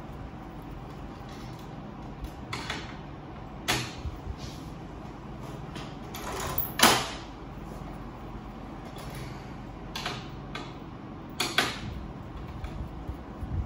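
Parts of a Ricoh MP C306 copier being handled during disassembly: scattered clicks and knocks of plastic and metal parts. The loudest is a short scrape ending in a sharp knock about seven seconds in, all over a steady low background hum.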